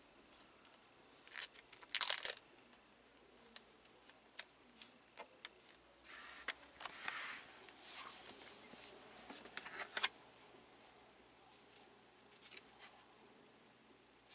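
Scattered light clicks and rustling handling noises, with the loudest rustle about two seconds in and a longer stretch of rustling from about six to ten seconds in.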